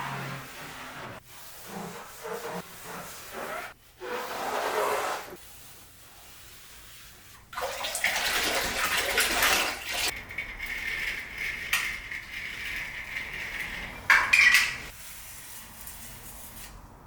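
Water running and splashing in short stretches, with a steady high tone for about four seconds in the middle.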